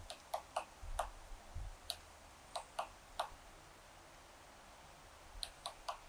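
Great spotted woodpecker making sharp, short clicks, about a dozen at irregular spacing, in three small groups.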